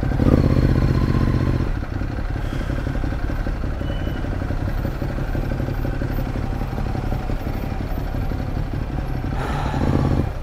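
Ducati Monster 821's V-twin engine running at low revs in stop-and-go traffic, louder for the first couple of seconds as it pulls off and briefly again near the end.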